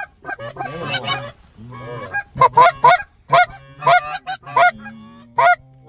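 Geese honking: short, sharp honks several a second in quick runs, with a brief lull near the end.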